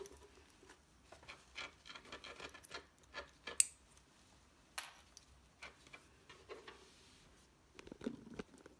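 Faint, scattered small clicks, scratches and rustles as a ferret is handled and fitted with a nylon strap harness, the ferret wriggling on a sisal-and-plush cat bed. A few sharper clicks stand out in the middle, and there is a short rustle near the end.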